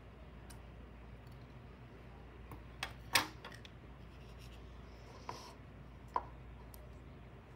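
A few light knocks and clicks of scissors, cardboard and a plastic cup being handled on a wooden tabletop, over a faint steady hum. The loudest knock comes about three seconds in, with smaller taps around five and six seconds in.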